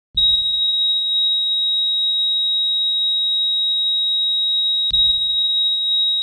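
Heart-monitor flatline: one steady, high-pitched electronic tone held without a break, the sign of the heart having stopped. A sharp click breaks in about five seconds in.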